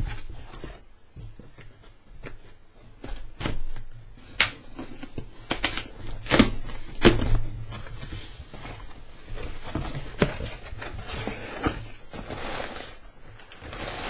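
Cardboard box being opened by hand: packing tape ripped off in rasping pulls, with the cardboard flaps scraping and irregular knocks and taps as the box is handled.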